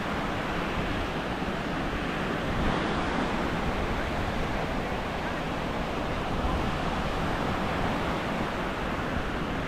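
Sea waves washing onto the shore, with wind buffeting the microphone: a steady, noisy rush with no separate events.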